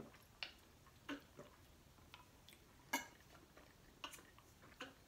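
Quiet eating sounds at the table: a handful of short, faint clicks and taps from utensils and mouths, the sharpest about three seconds in.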